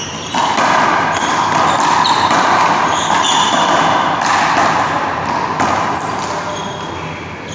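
One-wall handball rally: the small rubber ball slapped by hand and smacking off the wall in a run of sharp impacts, with sneakers squeaking now and then, over a steady rushing background noise that comes up about half a second in.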